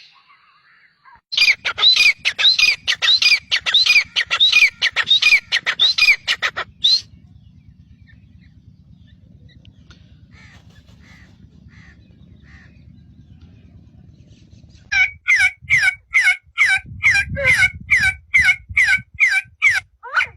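A bird calling in fast runs of short repeated notes, a few to the second. A run of about five seconds is followed by a quieter stretch with a few faint chirps, and then another run of falling notes starts about fifteen seconds in.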